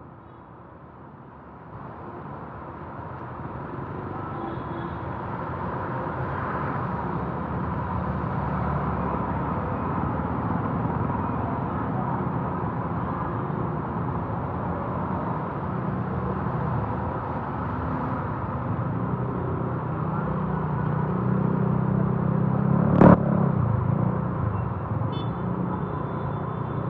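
Motor vehicle engines running in passing road traffic, growing louder over the first several seconds. One vehicle comes close and louder a few seconds before the end, with a single sharp knock as it passes.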